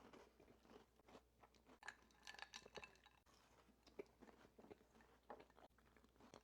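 Faint close-up chewing of a cookie with a crunchy brown sugar topping: soft irregular crunches, busiest around the middle.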